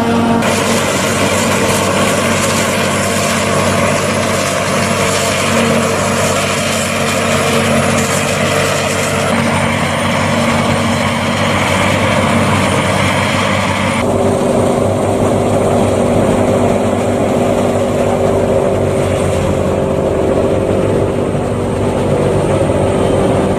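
New Holland FX 450 self-propelled forage harvester and John Deere tractor engines running steadily while chopping corn silage and filling the trailer alongside, a loud continuous machinery drone with steady engine tones. The mix shifts abruptly twice, about a third and about three-fifths of the way through.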